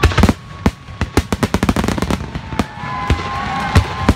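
A fireworks finale: a rapid, irregular barrage of sharp bangs and cracks from aerial shells, loudest right at the start, with long whistling tones over the bangs from about halfway through.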